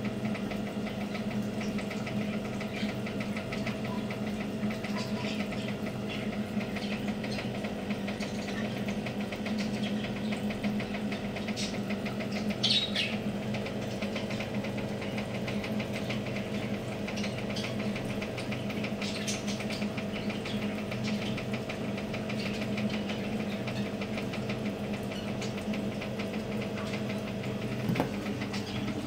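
A small electric machine humming steadily with a fast, even rattle. Short high chirps come through about halfway through and again near the end.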